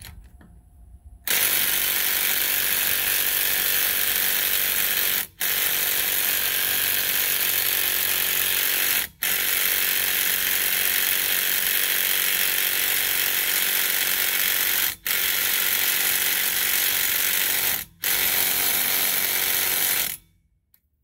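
Ryobi P235 brushed cordless impact driver hammering continuously on a lug nut, with the trigger let off briefly four times. The nut does not budge.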